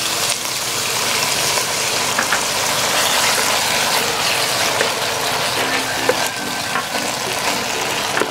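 Thin slices of raw beef sizzling steadily in hot oil in a non-stick pan, with scattered small crackles and pops, as they are stirred with a spatula.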